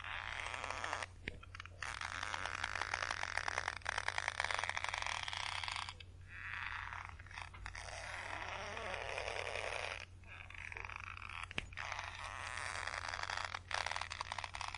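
Rope creaking and straining under tension: a run of gritty, crackling creaks lasting a few seconds each, broken by short pauses, over a faint low hum.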